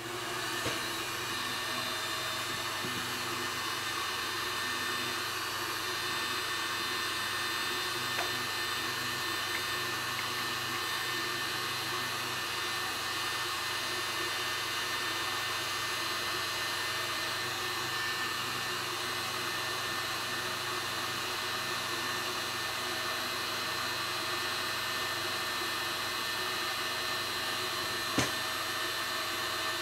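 Battery load tester drawing about 215 amps from a LiFePO4 cell bank, giving a steady whirring rush of air with several steady pitched tones that comes up as the discharge test begins. A single sharp click sounds near the end.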